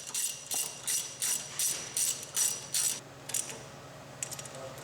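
Ratchet wrench clicking in quick strokes, about three a second, as cap screws on a waterjet intensifier cylinder are run in and snugged down; the strokes stop about three seconds in, and a few fainter clicks follow near the end.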